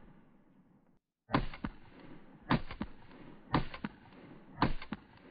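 Stock Glock 19 Gen 5 9 mm pistol, no compensator fitted, firing four shots about a second apart, each crack followed by a short echo.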